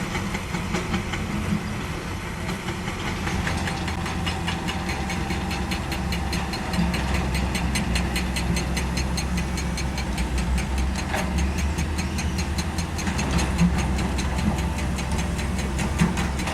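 Diesel engine of a heavy earthmoving machine running steadily, with a rapid, even ticking that starts about three seconds in.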